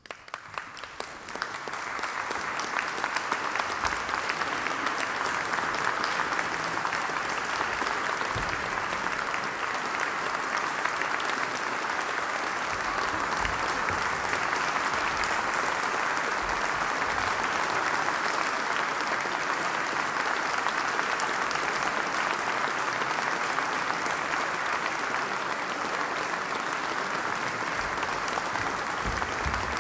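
Concert audience applauding, heard in a binaural dummy-head recording: the clapping starts suddenly, swells within about two seconds and then goes on steadily.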